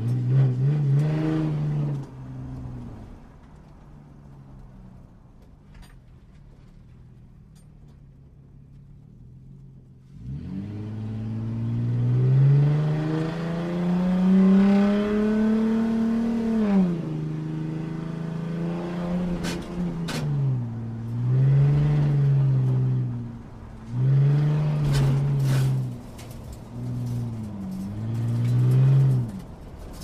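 Sports car engine revving and accelerating: a short rev at the start, a quieter stretch of several seconds, then a long rising pull from about ten seconds in that drops off sharply, followed by a run of shorter rises and falls in engine pitch.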